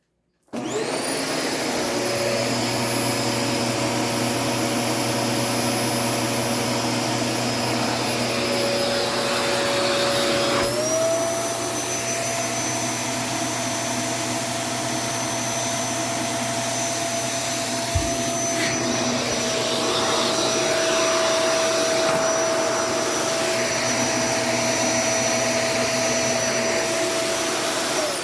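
LG Cyking C33FNT vacuum cleaner switched on and running with a steady motor whine. About ten seconds in, the motor pitch steps up and stays at the higher speed, with a short knock later on. This is the fault the owner describes: after the suction is briefly blocked, the motor goes to high RPM and does not come back down until it is switched off.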